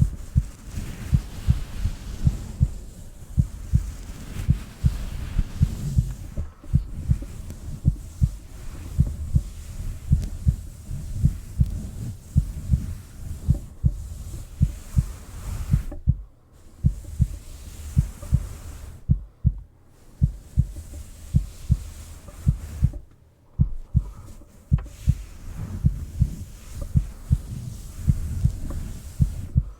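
Heartbeat: steady, regular low thumps a little faster than one a second, over a soft steady hiss. The sound drops out briefly three times in the second half.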